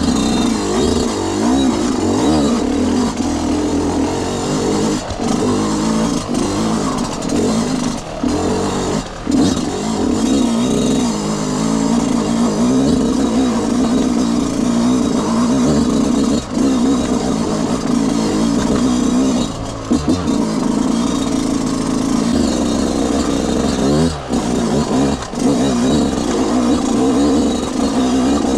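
Yamaha YZ125 two-stroke single-cylinder engine being ridden, its note rising and falling with the throttle, with short breaks several times.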